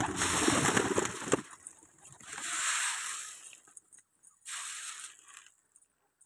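A wheat and millet grain mix being poured down through the wire netting onto the enclosure floor: a loud, dense rattling pour that stops about a second and a half in. Two shorter, softer rushing sounds follow.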